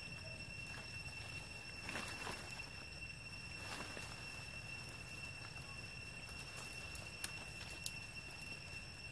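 Young long-tailed macaques scrambling over branches and leaves: rustling swells about two seconds in and again near four seconds, and two sharp clicks come near the end, over a steady high-pitched whine.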